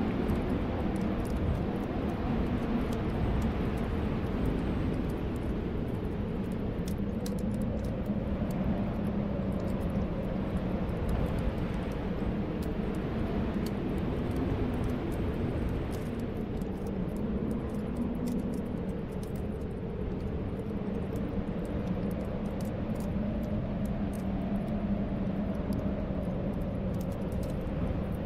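Snowstorm wind blowing steadily, with a low moaning whistle that slowly swells and eases. Faint crackles of a wood fire are scattered over it.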